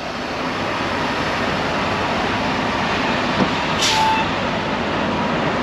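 Semi truck's diesel engine running steadily at low speed, heard from inside the cab, with a short hiss of air about four seconds in.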